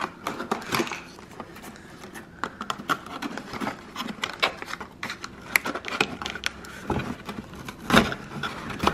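Cardboard display box being handled and opened by hand: flaps pulled and folded, with scraping, rustling and many small clicks, and a louder knock about eight seconds in.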